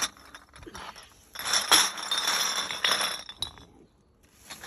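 Bags of empty drink bottles being handled: plastic bags rustling as the bottles inside clink together, for about two seconds in the middle.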